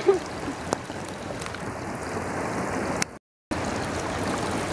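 Steady rushing noise of running water. It cuts out to total silence for a moment about three seconds in.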